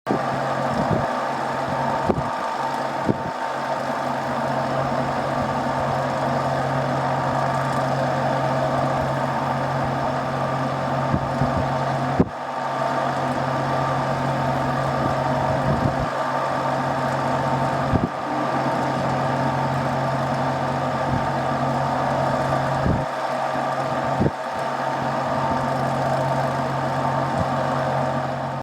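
Air-conditioner outdoor unit running with a loud, rough grinding noise from its fan motor over a steady hum, with a few sharp clicks. The noise began after the unit was flooded; the owner traced it to the fan motor, with its bearings suspect.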